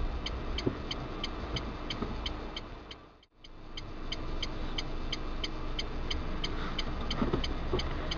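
Car engine idling, heard from inside the cabin, while the turn-signal relay clicks steadily at about three clicks a second. The sound cuts out completely for a moment a little after three seconds in.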